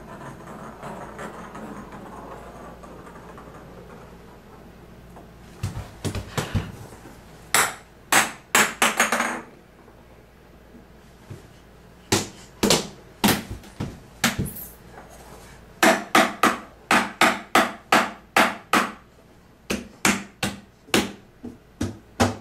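A baby's hands smacking on a hardwood floor, in bouts of sharp knocks that begin about six seconds in and come about two a second at their quickest.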